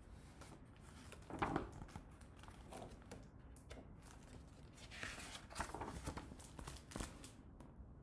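Pages of a picture book being turned by hand: faint paper rustling and brushing, louder about a second and a half in and again around five to seven seconds in.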